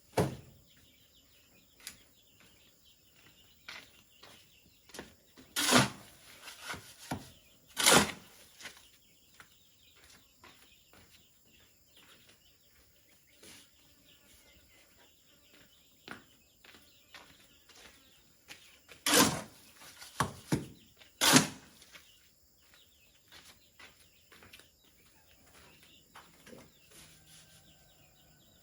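Irregular sharp knocks and blows, the loudest a pair a couple of seconds apart and then a cluster of three more later, with fainter taps between and light birdsong in the background.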